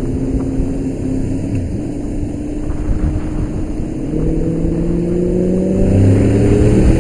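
Motorcycle engine running on the move, with wind noise on the microphone; from about four seconds in the engine pitch rises steadily and grows louder as the bike accelerates.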